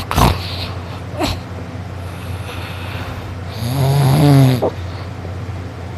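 A sleeping boy snoring loudly. There are brief sharp breath sounds near the start, then one loud, pitched snore of about a second halfway through. A steady low hum sits underneath.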